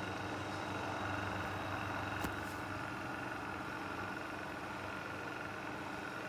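A 1970s Email exhaust fan running steadily with its cover off: a continuous whir of air with a steady motor hum in several tones. A single sharp click about two seconds in.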